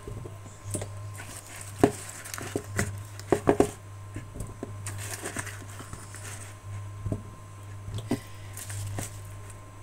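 Raw potato being cut into chunks by hand straight over a pot of simmering broth: a string of sharp, irregular snaps as the knife breaks through and small plops as the pieces drop into the liquid. A steady low hum runs underneath.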